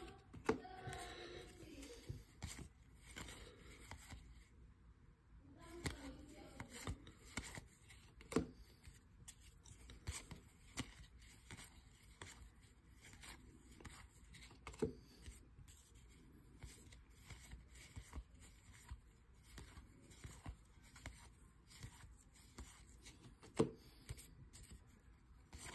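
Paper trading cards flipped one at a time from the front of a handheld stack to the back, each giving a faint slide and snap at irregular intervals, with a few sharper clicks.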